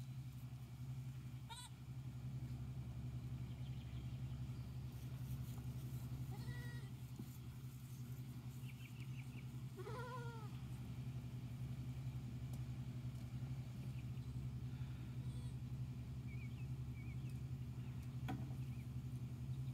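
A goat kid bleats briefly about halfway through, with a fainter bleat a few seconds earlier, over a steady low hum. A few short bird chirps come in between.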